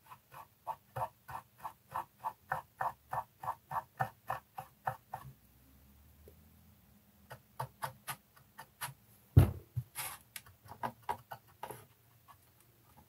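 Cotton bud soaked in enamel thinner scrubbed back and forth over a varnished, painted plastic model part, short rubbing strokes about three a second, lifting the enamel wash off the gloss coat. The scrubbing pauses for a couple of seconds midway, then resumes, with a single thump about nine seconds in.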